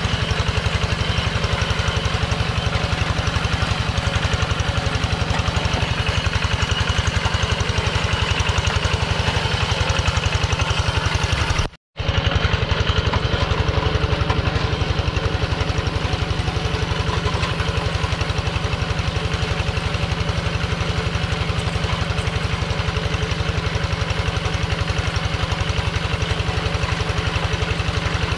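Kubota two-wheel hand tractor's single-cylinder diesel engine running steadily under load, a fast even chugging, as it pulls a plow through a flooded rice paddy. The sound cuts out for a split second about twelve seconds in, then the same engine carries on.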